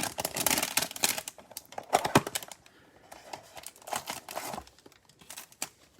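Plastic trading-card pack wrappers crinkling and tearing, with quick clicks of cards being handled and flipped, busiest in the first couple of seconds and sparser after.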